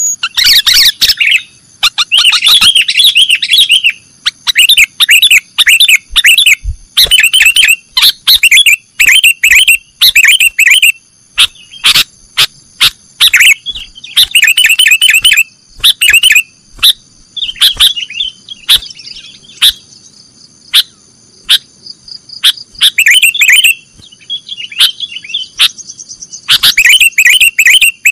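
Sooty-headed bulbul singing its loud 'nggaruda' song: a run of rapid, chattering, warbling phrases, each a second or two long, broken by short pauses. A faint steady high-pitched tone runs underneath.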